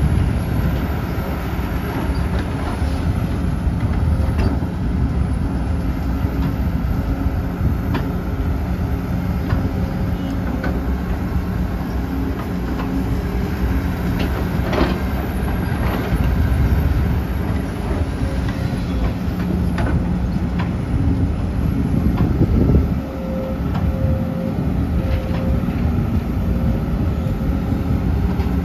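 Sumitomo SH250-6 hydraulic excavator's diesel engine running steadily under working load as it digs and swings, with scattered clanks and knocks from the bucket and from dirt dumped into a dump truck's bed.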